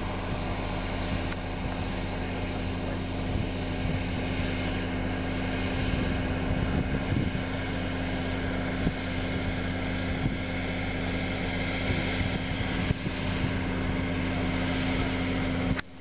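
Cat Challenger 55E rubber-tracked tractor's diesel engine running steadily under load as it pulls a side-dressing fertilizer applicator through the field, a constant low drone growing a little louder as it approaches.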